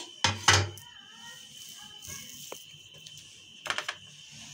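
Hands handling cut rounds of dough on a marble counter: two short knocks about half a second in, then quiet with a faint steady high tone, and a few light clicks near the end.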